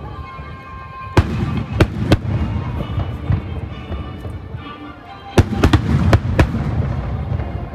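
Aerial firework shells bursting overhead in two volleys of sharp booms: three about a second in, then a quicker cluster of about five just past the middle.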